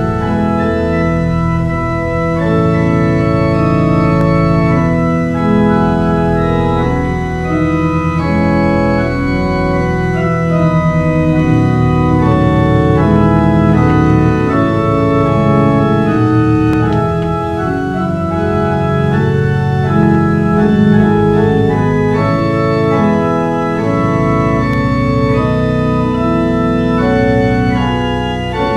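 Church organ playing slow sustained chords over a steady deep bass, the notes changing in steps.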